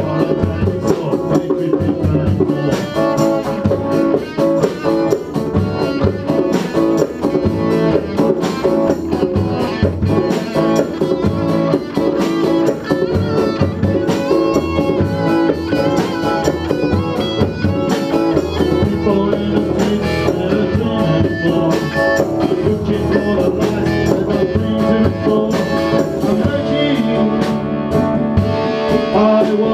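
Instrumental music led by guitar, with drums keeping a steady beat.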